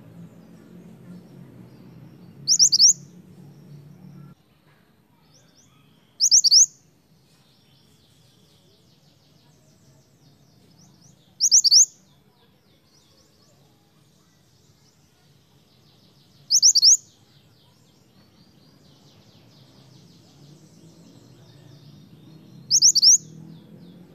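Minivet (mantenan) giving five loud, sharp whistled calls, each a quick pair or triple of upward-sweeping notes, spaced about four to six seconds apart, with faint twittering behind.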